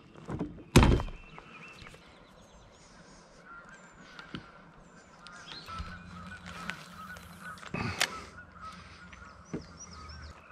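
Geese honking repeatedly and faintly from about three seconds in, with small birds chirping. A single sharp knock about a second in is the loudest sound, and a second knock comes near the end.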